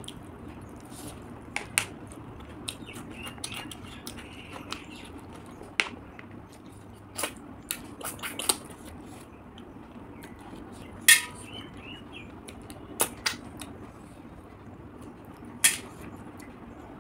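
Eating fried river snails by hand: sharp sucking clicks as snails are sucked from their shells, with shells clicking against the plate, spaced a second or more apart.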